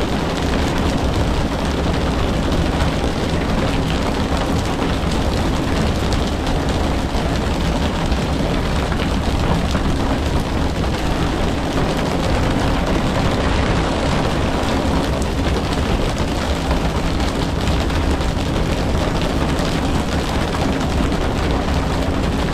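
A fishing boat's engine runs steadily with a low, even hum under a constant rushing noise.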